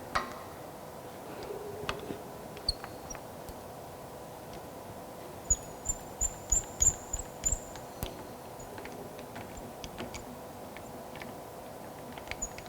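Scattered light knocks and clicks of things being handled in a metal workshop. About halfway through there is a quick run of about seven knocks, each with a brief high metallic ring, over a faint steady hum.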